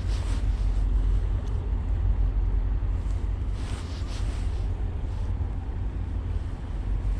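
Wind buffeting the microphone: a steady low rumble under a rushing hiss, with a few soft swells about four seconds in.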